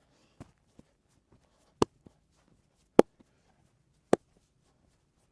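Sharp hand smacks of a head massage: three loud ones about a second apart, with a few fainter taps between.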